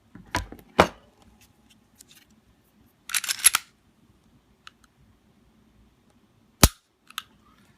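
Smith & Wesson Shield 9mm pistol being dry-fired and worked by hand, with sharp metallic clicks. Two clicks come near the start, a quick cluster of clicks about three seconds in, and one sharp click near the end, the crisp trigger break.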